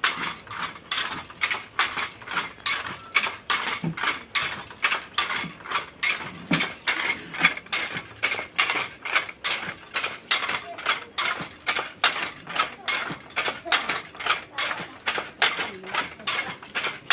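Handloom weaving, with a steady clack-clack of the shuttle and beater about three times a second.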